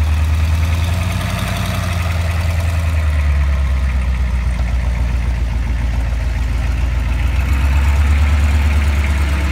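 Engine of a Ford wrecker tow truck idling as the truck creeps slowly forward, a steady deep hum.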